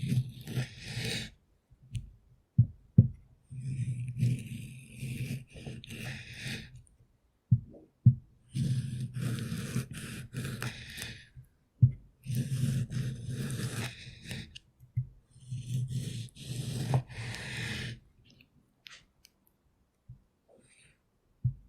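Kitchen knife slicing through tomatoes on a cutting board: several cutting strokes a few seconds long, with a few sharp knocks of the blade on the board in between. Near the end there are only faint clicks.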